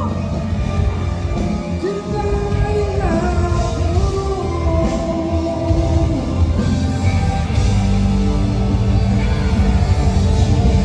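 Rock band playing live on stage at a sound check: drum kit and bass under a held melody line that slides in pitch, the band filling out and getting a little louder about six and a half seconds in.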